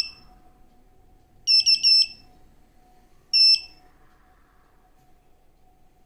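Shrxy GP2 pinpointer beeping at metal, powered by its newly fitted Li-Po battery: a quick run of three or four short, high electronic beeps about a second and a half in, then one longer beep a couple of seconds later.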